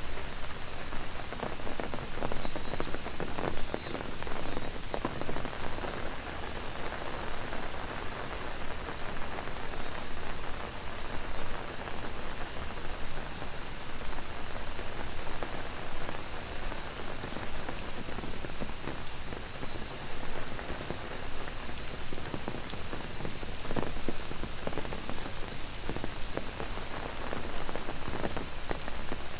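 A cicada chorus holds a steady high-pitched drone over rain pattering on an umbrella, with scattered taps and footsteps.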